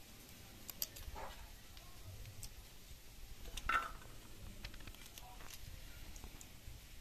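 Fresh green pea pods being split open by hand, with faint snaps and small clicks as the peas drop onto a steel plate. One louder click comes a little past halfway.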